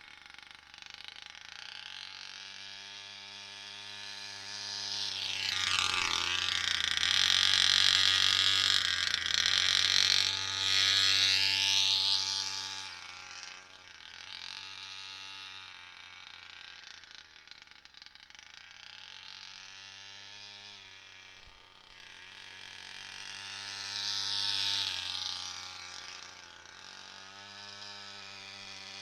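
Small 26 cc two-stroke petrol engine of a 1/8-scale RC car running at a steady idle, then revving up and falling back twice: a long run of high revs about five to thirteen seconds in, and a shorter one near the end.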